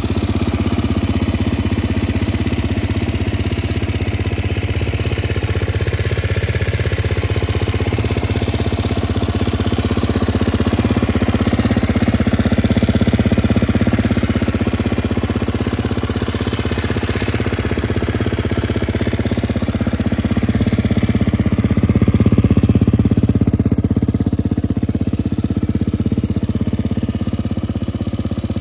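GasGas EC 250F's single-cylinder four-stroke engine idling steadily, swelling slightly in level now and then.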